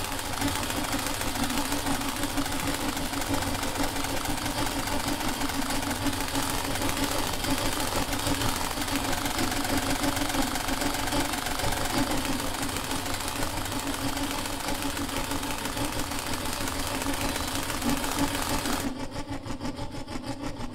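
Experimental drone music from accordion and live electronics: a dense, rumbling, noisy texture over a steady pulsing tone. About nineteen seconds in the upper hiss cuts off suddenly, leaving the lower drone.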